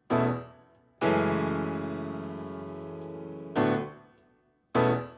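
Background piano music: four chords struck one after another, each left to ring and fade, the second held for a couple of seconds.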